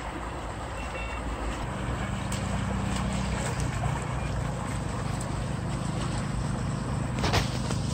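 Water rushing out of a concrete culvert pipe and churning into a stream, a steady noise. A low steady hum joins it about two seconds in, and there is a sharp click near the end.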